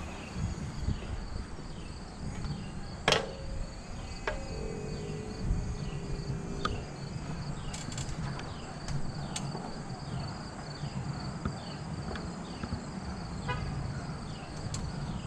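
Steady chirring of insects such as crickets over a low background rumble. A sharp click comes about three seconds in, and a distant horn-like tone sounds a little after.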